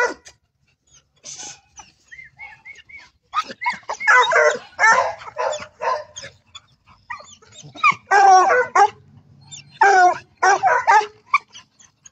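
Two excited hunting hounds, a Gascony blue and a griffon, barking and yelping in short runs of wavering calls, eager to be let out to hunt.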